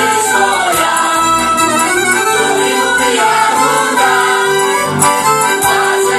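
Polish folk song sung by a group of women's and men's voices, with accordion accompaniment and a regular low bass pulse.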